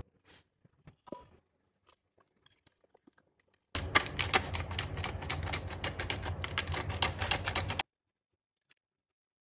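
Hand-operated metal flour sifter clicking rapidly as powdered sugar is sifted through it. The clicking starts about four seconds in, runs for about four seconds and stops abruptly; a few faint knocks come before it.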